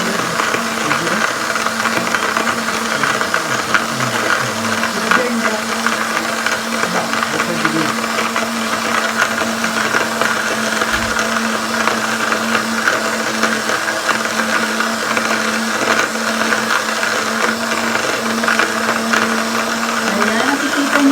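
Portable USB electric coffee grinder running steadily while grinding coffee beans: a constant motor hum with the grating of beans being crushed.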